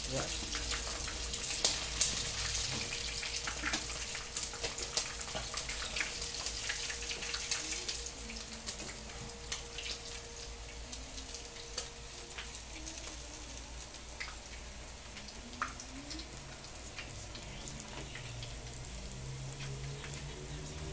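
Duck pieces deep-frying in hot oil in a wok: a steady crackling sizzle with scattered pops, the duck cooked and being lifted out. The sizzle is louder for the first several seconds and quieter after about eight seconds.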